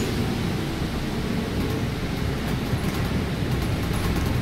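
Cabin noise of a city bus driving on a wet street: a steady low rumble of engine and tyres, with a few faint ticks now and then.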